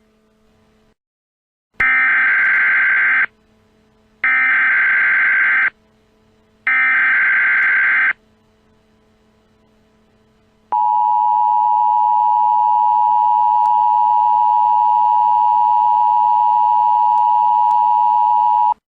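Emergency Alert System SAME header: three buzzy bursts of digital data tones, each about a second and a half long, then the EAS attention signal, a steady two-tone beep held for about eight seconds. Together they mark the start of a new emergency alert message.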